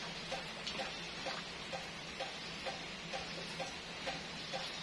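Faint, steady low electrical hum with a soft, even tick about twice a second.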